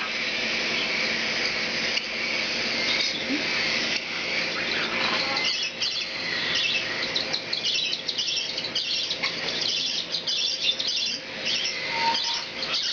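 Cockatiels chirping: quick runs of short, high chirps that grow more frequent from about halfway through, over a steady hiss.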